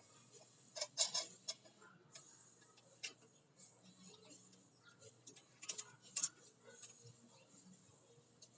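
Scattered metallic clicks and light knocks of brake pads and their shims being worked into a front disc brake caliper, with a cluster of clicks about a second in and another around six seconds.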